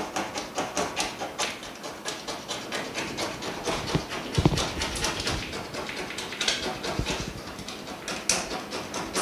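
Fingers rubbing and picking leftover glue off a Samsung Galaxy S6 edge LCD panel, making quick scratchy strokes, several a second.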